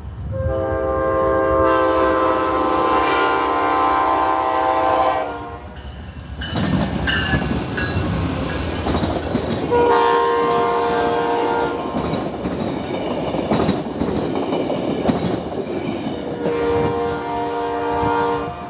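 Amtrak passenger train passing at speed: the locomotive's multi-chime air horn sounds a long blast lasting about five seconds, a shorter one about ten seconds in, and another near the end. In between is the loud rush and wheel clatter of the passenger cars going by.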